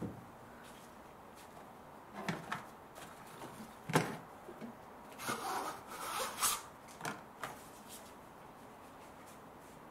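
Scattered handling noises: rubbing and rustling with a few light knocks, the sharpest about four seconds in.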